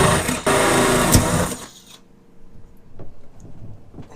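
Electric drill running hard as it bores an outlet hole through the boat's hull for an air-conditioning drain hose. It checks for an instant about half a second in, runs again, and cuts off after about a second and a half.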